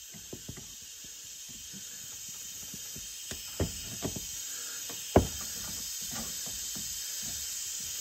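Pry bar working at the crimped metal ferrule on a transmission cooler hose line, spreading the split crimp: scattered metal clicks and scrapes with a few louder knocks, the loudest a little past five seconds in, over a steady hiss.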